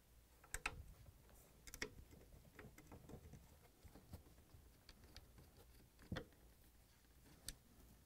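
Faint, irregular small clicks and taps of a Torx screwdriver backing out screws from a plastic refrigerator snack pan slide, with the plastic parts knocking lightly as they are handled.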